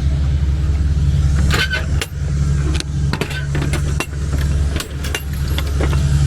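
Semi truck's engine running steadily, with scattered clicks and rattles over it.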